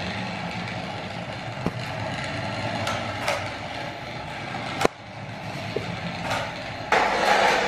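A radio-controlled toy car hums steadily, with a couple of sharp clicks. The sound grows louder near the end.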